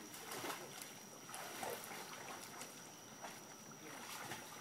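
Faint, irregular splashing of a child swimming butterfly stroke across a pool, her arms and body slapping and churning the water with each stroke.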